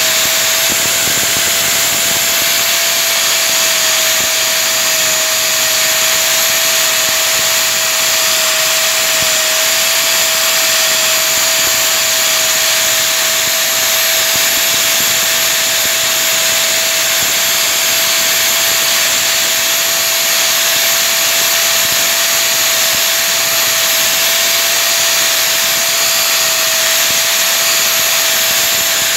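Steady machine noise: an even, loud hiss with a constant whine held at one pitch.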